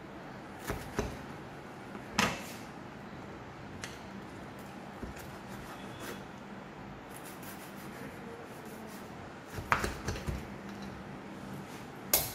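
Kitchen knife cutting through toasted sandwiches on a wooden chopping board: scattered knocks of the blade striking the board and crunching of toast, with a cluster of knocks a little before the end. A sharp clack near the end as the knife is laid on the counter.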